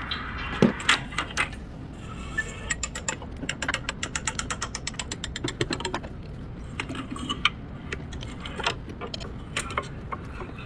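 Ratchet wrench clicking in a quick even run for about three seconds, with scattered metallic clinks and knocks of tools before and after.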